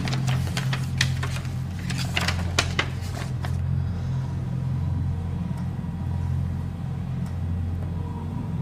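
Paper pages of a ring binder being flipped quickly, a run of crisp rustles and flaps that stops about three and a half seconds in. Under it runs a steady low drone.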